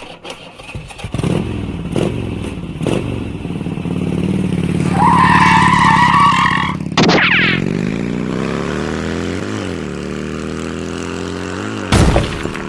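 Sound effect of a motor vehicle engine starting up and revving, rising and falling in pitch. Midway, a steady high tone is held for about two seconds, and a loud burst comes near the end.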